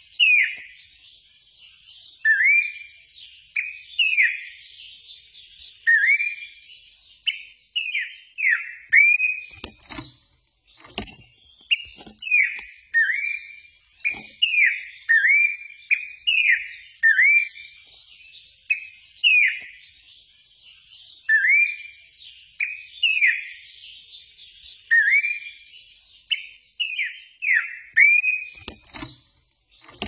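A caged pelatuk semak, a small brown songbird, singing clear, loud whistled phrases: short notes that slide up and down, repeated every second or two without a break. A few soft knocks come between the phrases.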